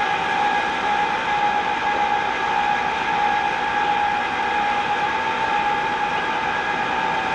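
Electric warning horn on an overhead crane, held on as one steady, unbroken tone. It sounds while the horn button is held down to bring the crane's controls on.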